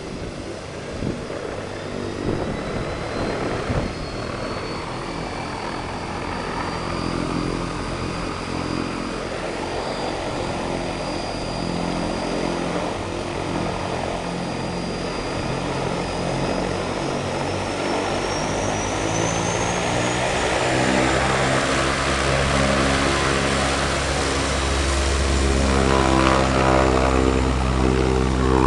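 Air Tractor firefighting plane taxiing with its turboprop engine running: a high turbine whine over the drone of the propeller. The whine climbs in pitch partway through, and the propeller drone grows louder as the plane comes close near the end.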